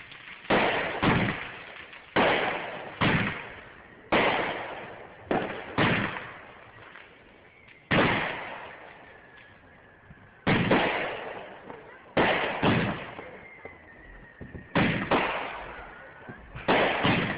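Fireworks exploding: sharp booms every second or so, often in quick pairs, each trailing off in a long echoing rumble. A faint falling whistle sounds between the bursts around the middle and again later.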